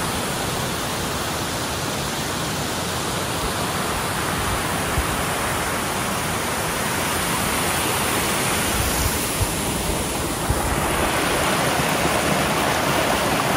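Small forest cascade: water running steadily over rocks below, an even, continuous rushing hiss.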